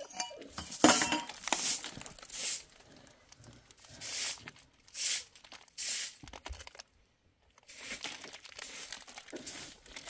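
Straw hand broom sweeping a concrete yard: a series of short, scratchy swishes about one a second, with a brief pause past the middle.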